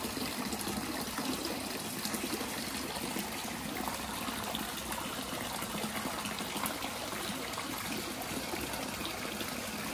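Steady noise of running, splashing water.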